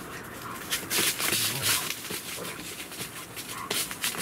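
Dogs playing and tussling, with irregular bursts of scrabbling and rustling noise that are loudest about a second in.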